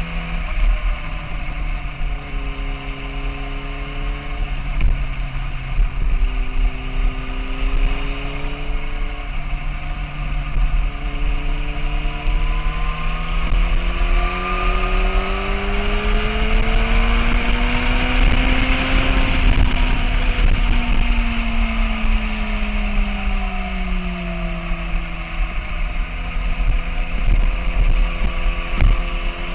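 Sport motorcycle engine at speed with heavy wind rush on the microphone. The engine note steps between pitches early on, then climbs steadily for several seconds about halfway through and falls back down as the bike slows.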